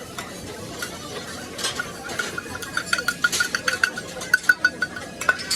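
A run of light clinks and taps of small hard objects, sparse at first, then coming fast and loudest in the second half.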